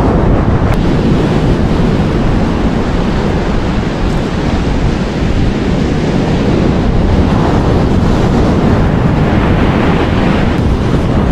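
Wind buffeting the microphone over the steady wash of surf on the beach.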